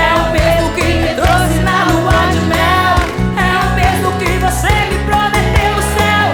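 Live sertanejo song sung by a female singer with band accompaniment: a sung melody over a steady bass line.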